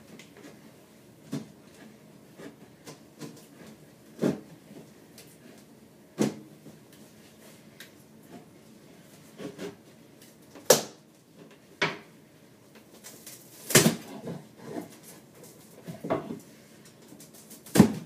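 Irregular knocks and clunks from hands working in the cabinet under a kitchen sink, around the garbage disposal and its drain pipes. About eight sharp knocks, unevenly spaced, the loudest a little past halfway and at the very end.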